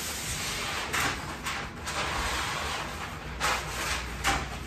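Kitchen handling noises: several sharp clicks and knocks of bowls, utensils and drawers being moved, over a hiss that eases off about three seconds in.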